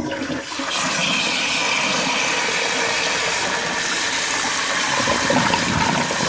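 Float valve refilling a cast-iron cistern: a jet of water splashing into the water in the tank, a steady rush that comes up to full strength about a second in.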